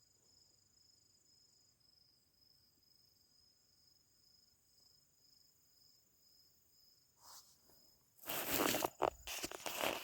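Crickets chirping in a steady, pulsing high trill, with a fainter, higher insect whine. About eight seconds in, loud rustling and scraping noise close to the microphone drowns them out.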